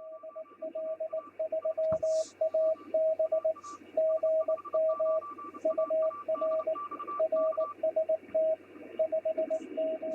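Morse code sent as a single steady mid-pitched tone keyed on and off in dots and dashes, over radio band hiss.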